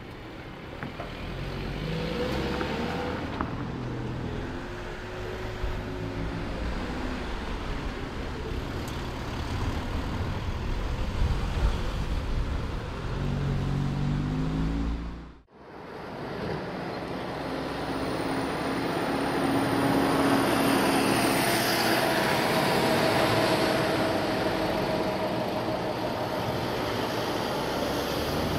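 Cars driving on the road, with engine pitch rising as a car pulls away twice over steady road and tyre noise. The sound drops out for a moment about halfway through, then steady traffic noise continues.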